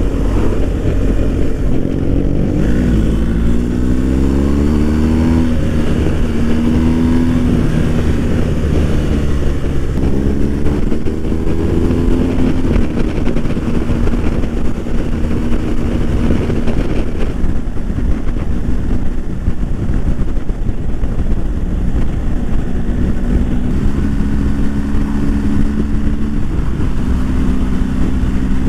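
BMW R1250 GS boxer-twin engine pulling along the open road, its pitch rising twice as it accelerates through the gears, then holding a steady cruise. Heavy wind rush runs underneath it.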